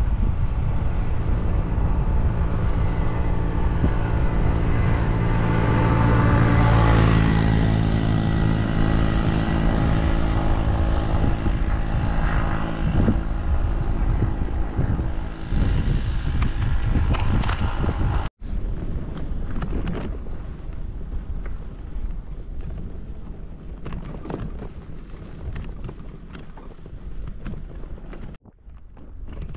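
A motor vehicle's engine running loudly with a steady hum, swelling about six or seven seconds in. It cuts off suddenly about eighteen seconds in and gives way to quieter road and wind noise with scattered knocks.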